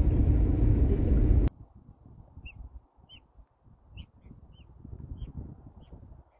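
Car cabin road rumble that cuts off suddenly about a second and a half in. Then birds in a snowy field give short, high calls, about eight of them spread over a few seconds, above faint low noise.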